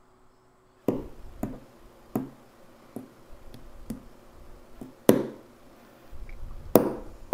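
Small brass-headed hammer tapping a stainless steel valve pin, a series of sharp, irregularly spaced taps, some light and a few harder. The blows drive the pin's spike into the PTFE ball that forms the valve seat.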